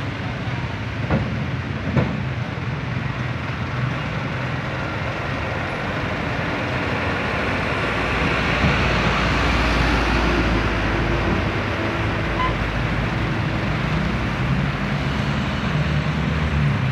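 Road traffic driving over a level crossing: motorcycles, cars and trucks moving across the rails in a steady stream. A dump truck passes close about eight seconds in, and its low engine rumble is the loudest part. Two sharp knocks sound in the first two seconds.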